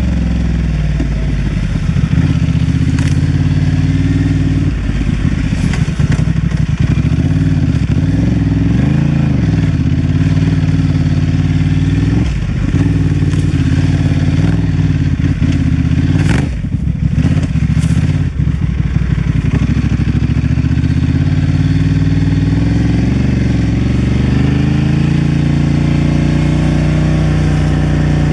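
Honda Transalp XL750's parallel-twin engine running as the motorcycle is ridden off-road, its pitch rising and falling with the throttle. A few sharp knocks come from the bike over rough ground, the loudest a little past halfway.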